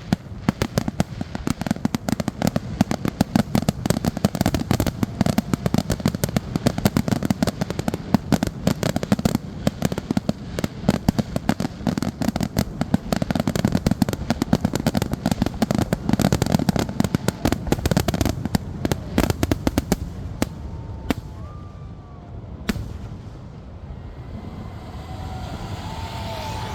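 Fireworks going off in a rapid, dense barrage of bangs and crackles for about twenty seconds, typical of a show's finale, then thinning to a couple of last single booms before dying away.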